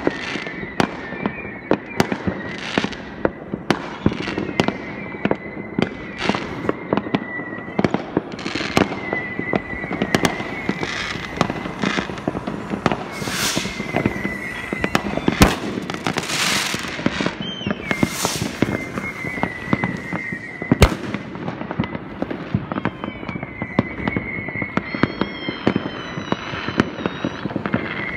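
Many fireworks going off across the neighbourhood: a constant, dense run of bangs and crackles from aerial shells and firecrackers. A high thin tone comes and goes throughout.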